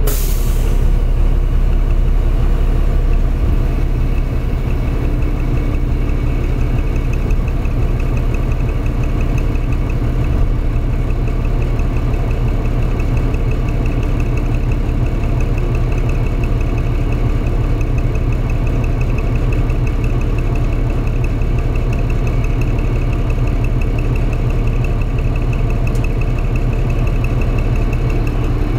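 Diesel engine of a New Flyer D40-LF transit bus idling, a steady low hum heard from inside the passenger cabin.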